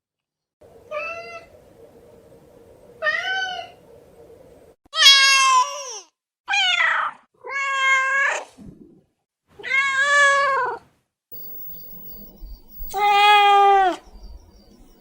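Domestic cat meowing repeatedly, about seven separate meows a second or two apart; the first two are short and faint, and the loudest comes about five seconds in.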